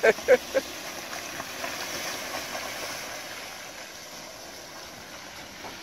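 A red van driving away along a muddy, waterlogged track, its engine and tyres making a steady noise that slowly fades as it goes. A few short, loud pitched sounds come right at the start.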